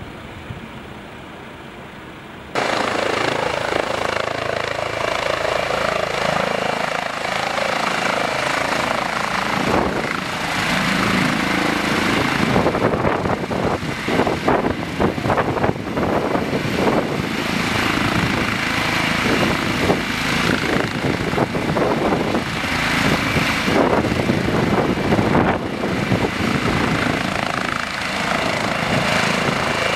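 Rescue helicopter's rotor and turbine running loud as it comes in low to land, a dense steady noise with a fast rotor chop. It starts abruptly about two and a half seconds in, after a quiet stretch.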